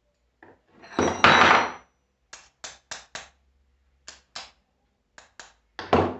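Metal clatter of starter-solenoid parts and a hand tool being handled: a longer rattling clatter about a second in, then a string of short sharp clicks and taps, and a louder knock near the end.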